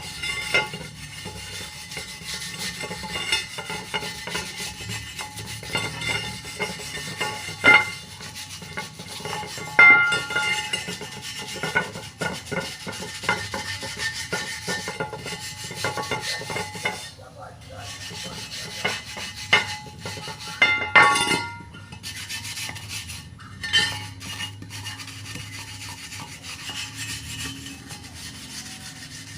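Scraping and rubbing on a metal motorcycle wheel rim as the paint is stripped off. It goes on steadily, with many clicks and a few short metallic rings, and is gentler for the last several seconds.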